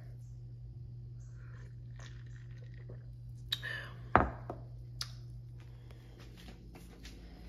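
A few light clicks and one sharp knock about four seconds in, over a steady low hum.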